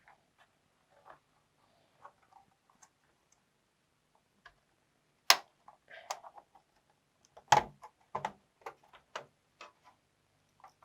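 Plastic clips of a Lenovo V510 laptop's bottom cover clicking loose as the case is pried open with a prying tool: faint ticks at first, then a string of sharp clicks and snaps from about halfway through.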